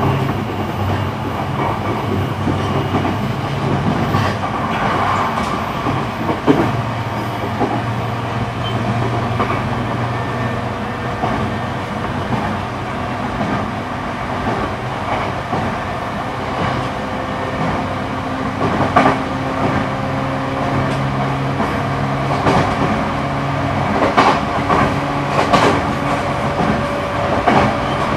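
JR East E235 series electric train, heard from inside its motor car, running at speed between stations: a steady rumble of wheels on rail with a few rail-joint clacks in the second half. Faint tones from the SiC-VVVF traction inverter and motors rise gently in the second half.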